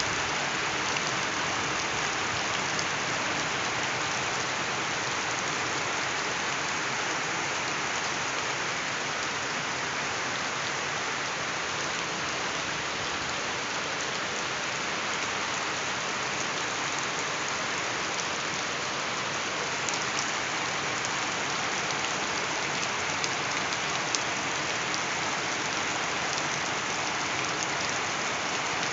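Steady rain falling and pattering on surfaces, an even hiss with a few sharper drop hits now and then.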